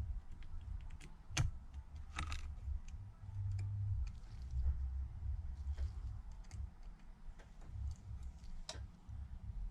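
Small precision tools clicking and tapping on the metal parts and screws of an opened iPad mini 2 during reassembly: irregular light ticks, with a sharper click about a second and a half in, another a second later, and one near the end, over a low handling rumble.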